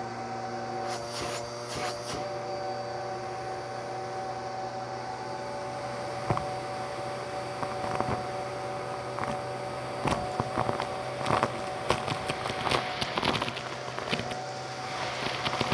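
Bissell PowerLifter vacuum running steadily through its hose attachment, with sharp crackling and rattling clicks from about six seconds in as beads, shell bits and other hard debris are sucked up the nozzle.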